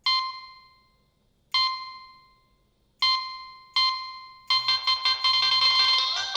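Nokia 3220 ringtone playing through the phone's small speaker. It opens with four single notes on the same pitch, each fading away, the last two closer together. From about four and a half seconds in, a fast melody with many notes at once takes over.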